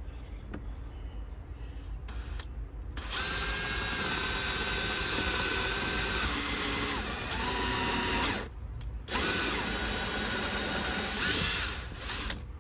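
Small electric drill boring a pilot hole. The motor starts about three seconds in and runs steadily with a high whine, stops briefly, then runs again for about three more seconds.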